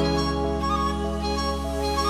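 Background music: calm, sustained instrumental chords.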